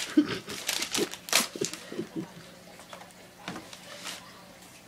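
Gift wrapping paper crinkling and tearing as a present is unwrapped: a quick run of sharp crackles in the first two seconds, then a few softer rustles.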